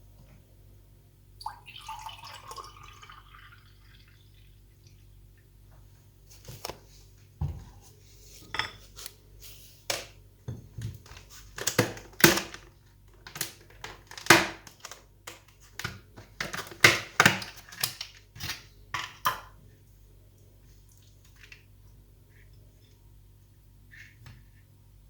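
A short rustle, then a long run of light clinks and taps as small hard objects are handled and set down, then quiet with a few faint ticks near the end.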